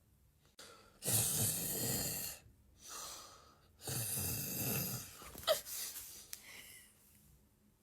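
A person snoring loudly: two long snores about three seconds apart, each lasting over a second, with a softer breath between them.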